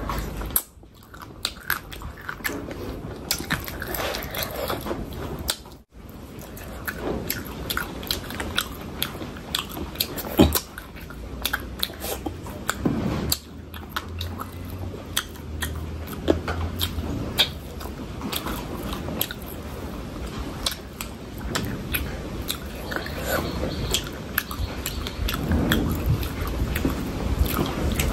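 Close-miked eating: a person biting and chewing food, with many short, irregular clicks from the mouth and food.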